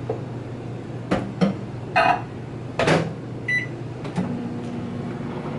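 Microwave oven being loaded and started: a few knocks and a door clunk as the bowl goes in, a single keypad beep, then the oven starts running with a steady hum about four seconds in.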